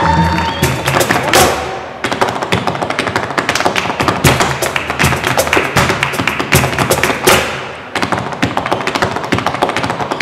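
Flamenco performance: rapid heel-and-toe footwork (zapateado) on a wooden dance floor, with palmas hand-clapping and a cajón keeping the rhythm in quick strikes.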